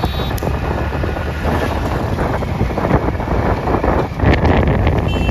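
Wind buffeting the microphone of a phone carried on a moving motorcycle, over a steady low rumble of engine and road noise.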